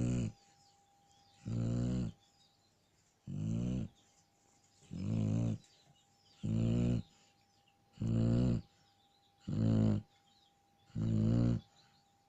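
Shar Pei dog snoring in a steady rhythm, one snore about every one and a half seconds, each lasting about half a second.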